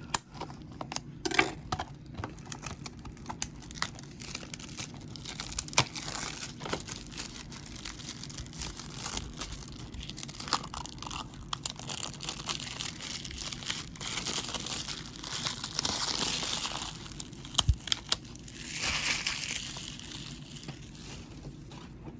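Plastic shrink-wrap being torn and peeled off a DVD case: crinkling and crackling with many small clicks and taps, loudest in two stretches past the middle.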